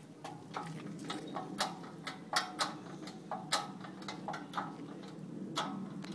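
Irregular metallic clicks and clanks from a hydraulic engine crane being pumped by its handle, lifting an engine out of a car's engine bay.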